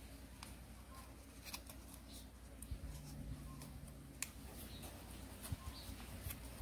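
Origami paper being folded by hand: faint rustling and crinkling with scattered crisp clicks as the creases are pressed, over a low steady hum.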